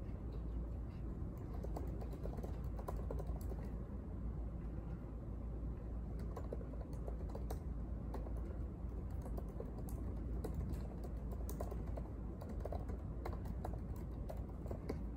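Typing on a laptop keyboard: quick, irregular keystroke clicks over a steady low background hum.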